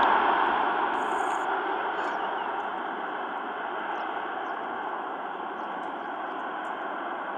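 Jet engine noise from an Airbus A330-300's two Rolls-Royce Trent 772B engines on the landing rollout, a steady roar fading gradually as the airliner slows and moves away down the runway.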